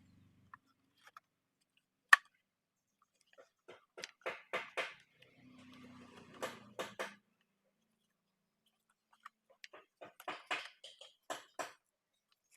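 Small hard clicks and taps of chainsaw parts being handled and fitted by hand during reassembly of the carburetor area. There is one sharp click about two seconds in, then several quick runs of tapping.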